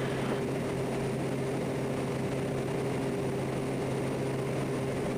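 Quest Kodiak 100's single PT6A turboprop engine and propeller running steadily on final approach, heard inside the cockpit as an even drone with a constant low hum.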